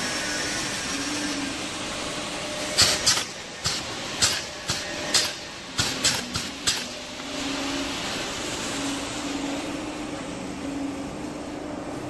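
KG-05 pneumatic perfume bottle crimping machine cycled by its foot pedal: about ten sharp bursts from the air cylinder and valve come in quick succession between roughly three and seven seconds in. A steady mechanical hum runs underneath.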